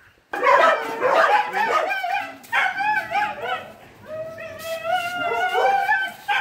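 Dogs in rescue kennels yipping and whining, with a longer drawn-out, wavering whine in the last couple of seconds.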